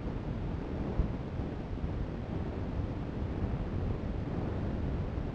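Steady low-pitched background noise with no distinct tone or rhythm, and a single faint click about a second in.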